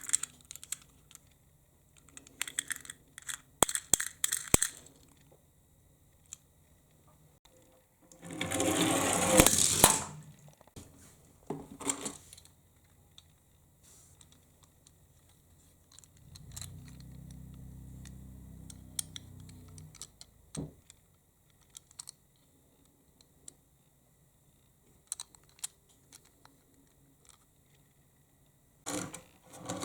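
Toy minicars being handled and run down a slope. Scattered small plastic clicks and taps, a loud rattling roll of about two seconds about eight seconds in, another starting near the end, and a low steady hum for about four seconds midway.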